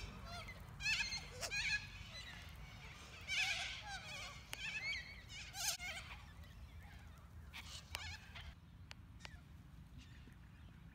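A flock of corellas screeching: harsh, wavering calls in bursts through the first six seconds or so, then fewer and fainter, with a few sharp clicks near the end over a steady low rumble.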